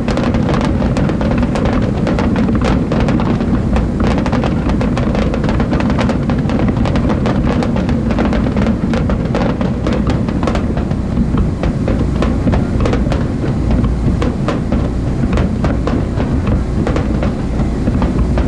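Aerial fireworks bursting in quick succession: a dense run of sharp cracks and bangs over a continuous low booming rumble.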